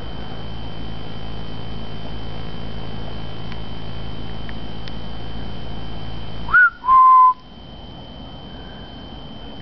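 A person whistling two short notes about two-thirds of the way in: a quick rising chirp, then a steady held note, loud over a constant background hiss.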